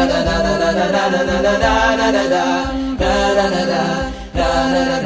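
A cappella vocal music: layered voices chanting over a held low note, with a brief break a little past four seconds in.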